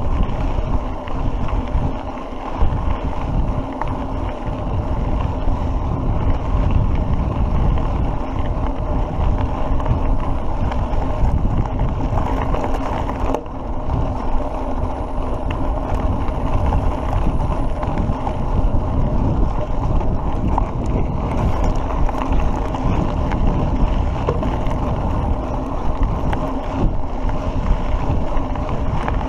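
Wind buffeting the microphone of a mountain bike rider's camera as the bike rolls along a dirt track, with tyre noise: a steady, fluttering rumble.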